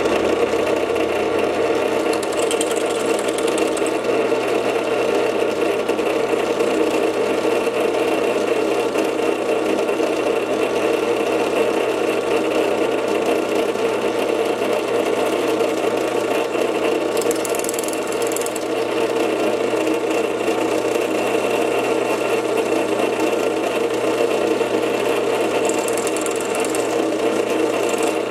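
Drill press running steadily under power, drilling holes in a pulley to form a keyway, with short high hissing three times.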